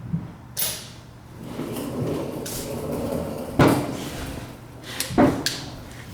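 Metal clicks and clacks of a socket being snapped onto and released from a Husky 3/8-inch ratchet's square drive with its quick-release button: a light click about half a second in, then two sharp clacks about a second and a half apart.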